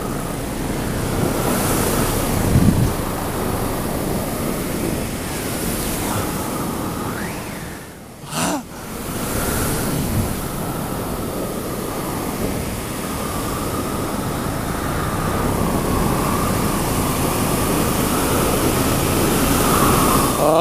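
Heavy wind rushing over the microphone of a camera held out from a paramotor in flight, with the paramotor's engine and propeller running faintly underneath as a steady tone. The rush dips briefly about eight seconds in.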